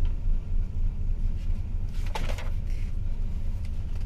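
Steady low hum of a ship's machinery, with a short rustle of paper as a page of a ring binder is turned a little after two seconds in.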